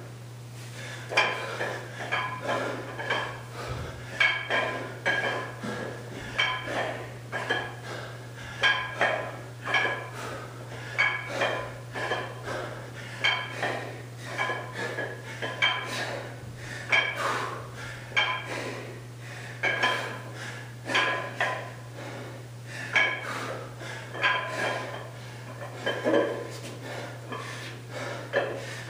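Iron weight plates on a plate-loaded dumbbell clanking and rattling against each other with each swing. The clanks come roughly once a second in an uneven rhythm, each ringing briefly.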